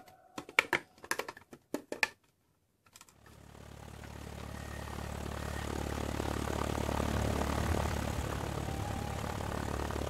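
A quick run of light plastic clicks as the toy car's red hose parts are handled, then a short silence. From about three seconds in, a steady engine rumble with hiss fades in and holds, a vehicle engine sound effect for the toy Ecto-500 car driving.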